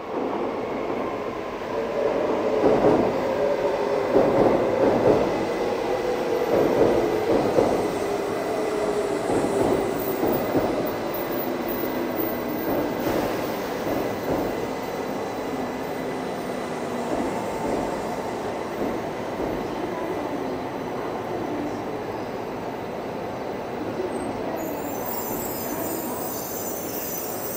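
E2 series Shinkansen pulling in slowly, its traction-motor whine and wheels on the rails loudest as the front cars pass. The whine sinks in pitch and the sound eases as the train decelerates.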